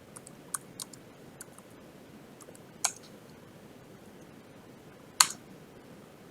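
Computer keyboard keys being pressed: a few light, scattered keystrokes in the first second and a half, then two sharper single key presses, near 3 s and near 5 s, the second the loudest.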